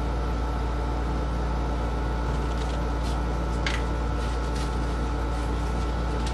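Steady mechanical hum of room equipment running, with a soft click about three and a half seconds in.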